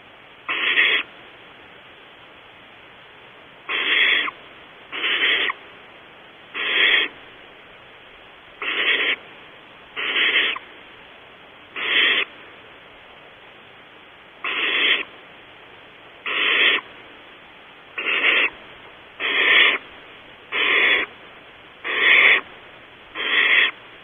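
Barn owl nestlings giving their hissing food-begging calls: about fourteen harsh, raspy hisses of half a second each, repeated every second or two.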